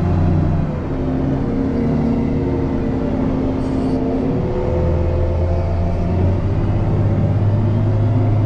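Heavy diesel engine of snow-clearing equipment working under load while pushing snow. The engine note shifts in pitch and rises about halfway through, holding higher to the end.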